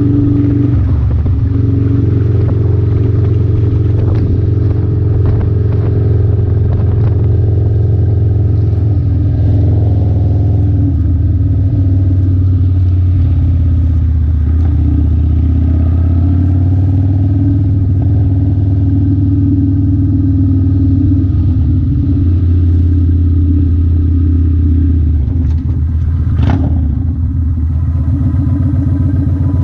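Kawasaki Vulcan 900 Classic's V-twin engine running steadily at low cruising speed, its pitch shifting a little with the throttle. One sharp click comes near the end.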